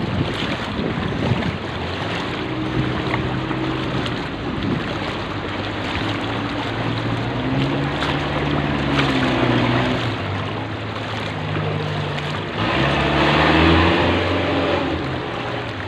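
Floodwater splashing and sloshing as a vehicle wades forward through a flooded street, its engine running underneath and rising and falling in pitch, with wind on the microphone. A louder rush of water comes about thirteen seconds in.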